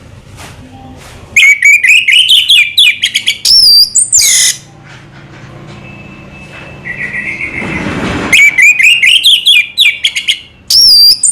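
Orange-headed thrush (anis merah) singing two loud phrases of quick twittering notes. Each phrase ends in a high, harsh rasping note.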